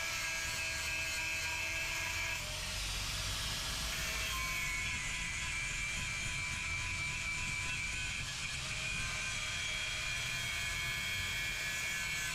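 Angle grinder cutting into steel, a steady high whine over a gritty hiss, its pitch shifting twice in the first few seconds.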